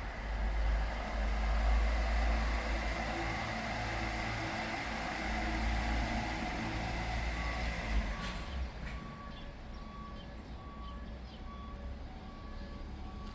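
A vehicle's low rumble for about eight seconds, then a quieter stretch with a short electronic beep repeating evenly about once a second.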